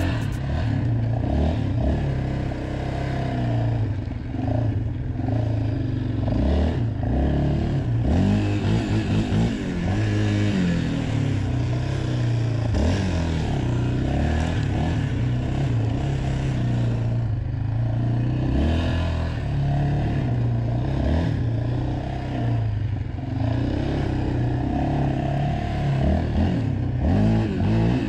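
Yamaha Raptor 700 ATV's single-cylinder four-stroke engine running at low speed while being ridden. It revs up and eases off again and again as the throttle is worked.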